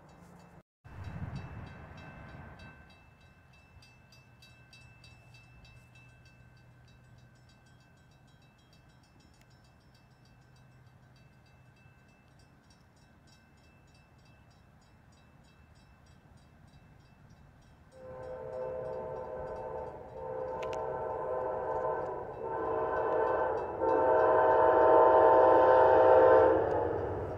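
Amtrak P42 diesel locomotive's air horn sounding four blasts for a grade crossing as the train approaches, the last blast the longest and loudest.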